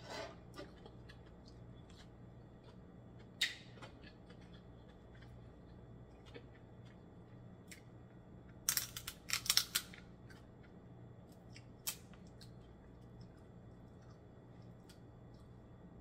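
Cooked snow crab leg shells being cracked and snapped by hand and teeth: scattered small clicks, a sharp crack a few seconds in, a quick run of loud cracks about nine seconds in, and one more near twelve seconds.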